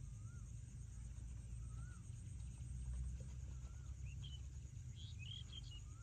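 Outdoor ambience of birds: one bird repeats a short rising-and-falling call every second or two, and other birds chirp briefly about four to five seconds in. Under them run a steady high pulsing hiss and a low rumble.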